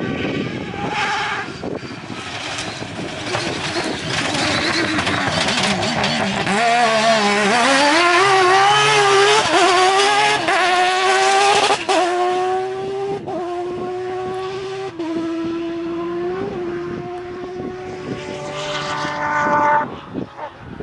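Rally car engine at full throttle, growing louder as it approaches and passes close by. It then pulls away with the engine note climbing and dropping back at each gear change, several upshifts in a row. Near the end there is another burst of revs, then a cut.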